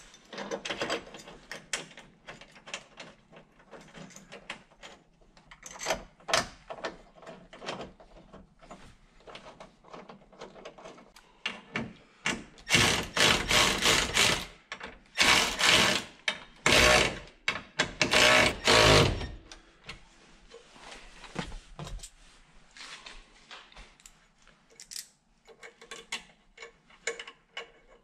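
Small metal clicks and rattles of bolts, nuts and a steel bracket being fitted by hand, then a small cordless power driver runs in four short bursts about halfway through, tightening the bracket bolts.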